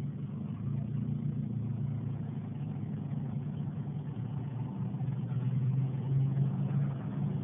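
Car engine and road noise heard from inside the cabin while driving: a steady low drone with no clear revving.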